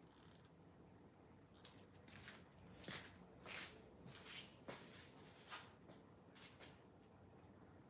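Near silence: quiet room tone with about ten faint, brief scuffs and rustles scattered through it.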